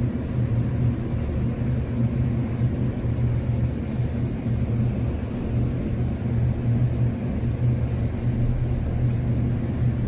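An engine running steadily: a constant low drone with a deep hum that does not change.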